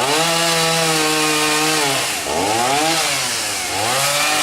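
Chainsaw engine revved hard: it climbs to high speed and holds there for about two seconds, then drops and is revved up and down twice more.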